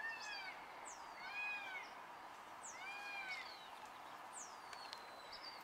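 Faint animal calls: three short arching high-pitched notes about a second and a half apart, with thin high whistles sweeping downward between them.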